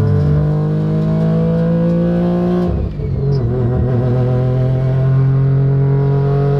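Street-ported three-rotor Mazda rotary engine in an RX-7 accelerating, heard from inside the cabin: its note rises for nearly three seconds, drops briefly at a gear change, then pulls again at a steadier pitch.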